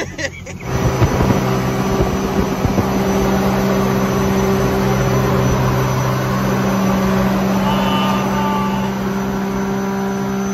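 Jet boat engine running hard at a steady speed, with rushing water and wind hiss; it comes in abruptly just under a second in.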